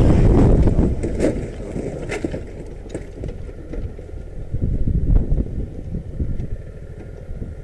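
Motorcycle riding over a rough gravel road. Wind on the mic is loud at first and eases after about a second, leaving the low rumble of the engine and the bike jolting over stones, with a few sharp knocks.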